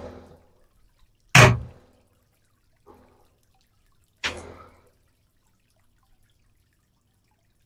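Water dripping: four separate drops about a second and a half apart, the second the loudest and the third faint.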